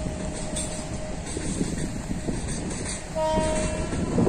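A steady rumbling noise, with a horn sounding once for under a second about three seconds in.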